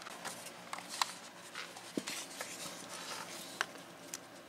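Faint, irregular light clicks and rustles of hands handling wiring in an engine bay, over a low steady hum.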